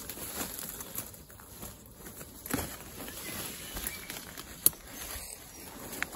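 Quiet footsteps and rustling through bramble undergrowth, with one sharp click about three-quarters of the way in.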